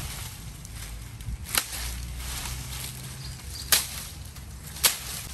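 Dry sticks snapping by hand: three sharp cracks, one about a second and a half in and two more close together near the end, amid the rustle of dry leaves and a steady low rumble.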